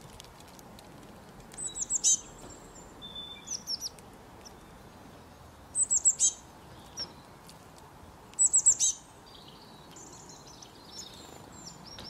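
Small songbird chirping in quick bursts of three to five short, high notes, each falling in pitch, repeated every two to three seconds, with fainter twittering near the end.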